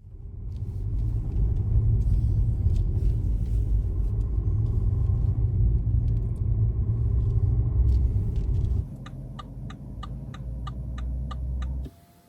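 Car driving, heard from inside the cabin: a heavy low road and engine rumble. About nine seconds in it turns quieter as the car slows, and the turn-signal indicator ticks steadily, about four ticks a second.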